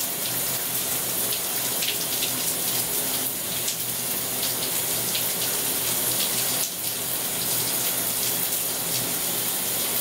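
Bathroom tap running steadily, an even hiss of flowing water.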